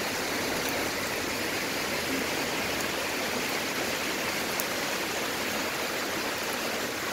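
Heavy rain pouring down on a city street: a dense, steady hiss of falling rain and splashing water, with a few faint ticks of nearby drops.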